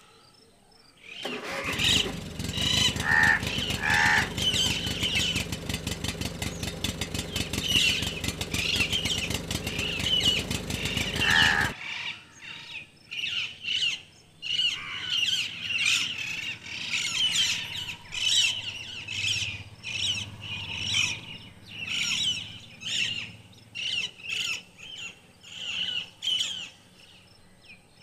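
An engine running with a fast, even beat, starting about two seconds in and cutting off abruptly a little before halfway. Birds chirp throughout.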